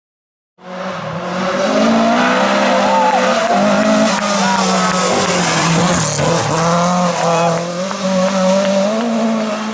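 Ford Escort Mk2 rally car at high revs, its tyres squealing as it slides sideways through a tarmac bend. It starts suddenly about half a second in and stays loud throughout.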